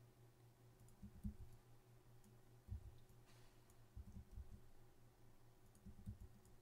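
Near silence with faint computer mouse and keyboard clicks in four small clusters, over a low steady hum.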